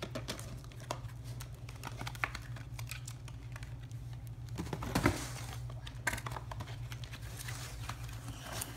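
Doll hair-extension package of plastic and cardboard being handled, giving a run of small irregular clicks and taps with one louder knock about five seconds in. A steady low hum runs underneath.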